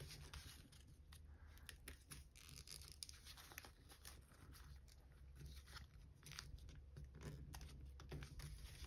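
Faint, irregular crinkling and crackling of foil origami paper being creased and folded by hand, over a low steady hum.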